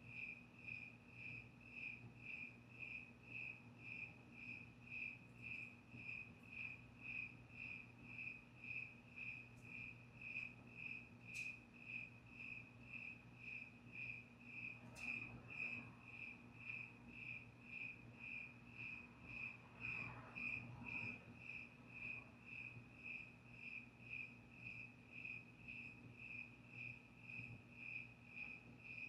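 A cricket chirping steadily, a single high-pitched chirp repeated at an even rhythm of a little under two a second. A few faint clicks sound in the middle.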